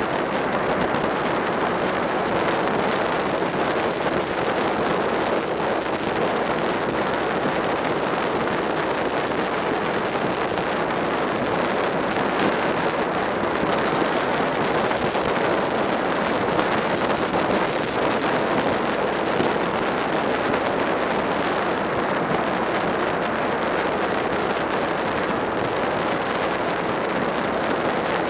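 Steady wind rushing over the microphone of a Suzuki SV650 motorcycle riding at an even speed, with the bike's V-twin engine running underneath.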